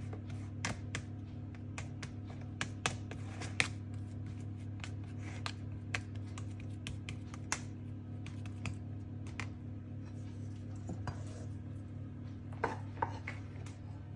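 A white plastic rice paddle tapping and scraping against thin plastic tubs as thick purple paste is spread and smoothed, giving irregular light clicks and knocks over a steady low hum.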